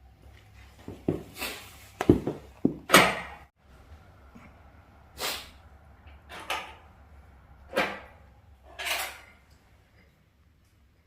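Knocks and clatters of split firewood being handled and loaded into a wood-burning stove: a quick cluster of hits in the first three seconds, then single knocks about every second or so until near the end.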